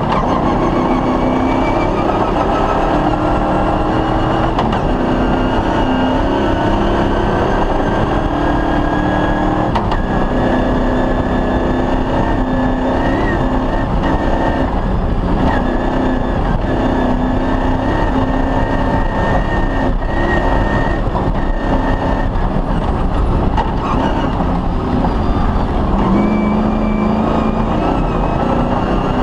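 Cross-country rally car's engine running hard at stage speed, its pitch stepping up and down every few seconds with gear changes and throttle, over heavy road and tyre noise.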